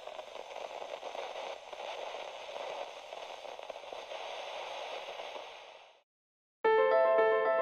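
Crackling, static-like noise that fades away about six seconds in. Piano music starts near the end.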